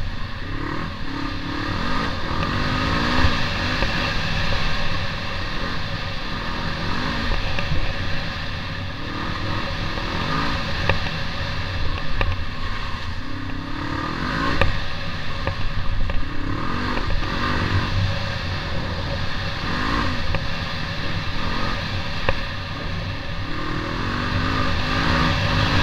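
Trail motorcycle's engine running while riding a rough dirt track, revving up and dropping back again and again as the throttle is worked. Scattered knocks and rattles come from the bike over the bumps.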